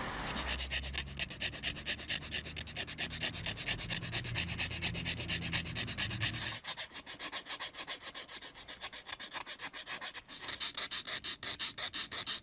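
Needle file scraping the cut edge of a galvanized steel sheet lure blank in quick back-and-forth strokes, about three or four a second, with a short break about ten seconds in.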